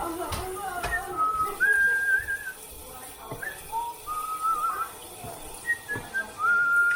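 A thin whistling tone held on several notes in turn, jumping up and down between pitches, with a few short clinks and knocks among it.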